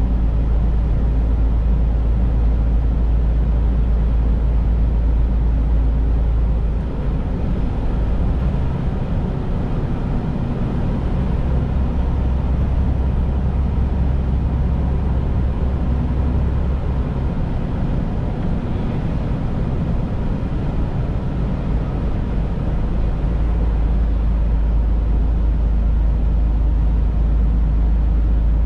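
Semi truck driving on the highway: steady engine drone and road noise. The deep rumble eases off twice for several seconds and comes back.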